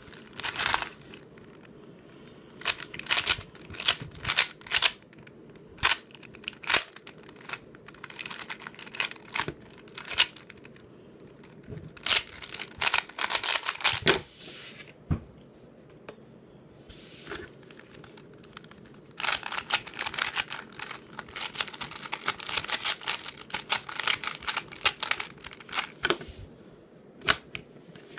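Rapid plastic clicking and clacking of a YJ Sulong 3x3 speedcube's layers being turned during a speed solve, in quick flurries broken by short pauses.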